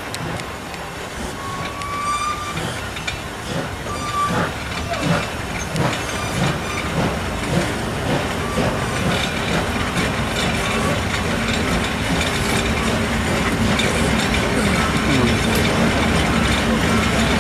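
Steam-hauled train heard from an open coach window: the ex-Deutsche Reichsbahn class 50 locomotive 50 3673 working ahead, with regular beats and wheel clatter, getting steadily louder.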